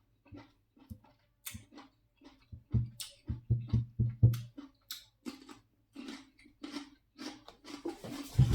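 Shellfish and utensils being handled at a meal: scattered short clicks and taps, with a run of about six dull knocks nearly three to four and a half seconds in.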